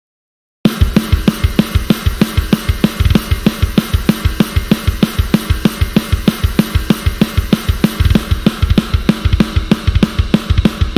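Sampled drum kit from the Drum Daddy KONTAKT library playing a fast, heavy pattern: rapid, even bass drum strokes under hi-hat and cymbals. It starts abruptly about half a second in, after digital silence.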